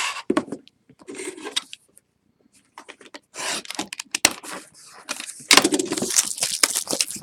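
A cardboard trading-card box being handled and its plastic wrap slit with a utility knife, then the wrap torn and crinkled off. Scattered scrapes and clicks at first, growing into a dense, louder crackling of plastic over the last couple of seconds.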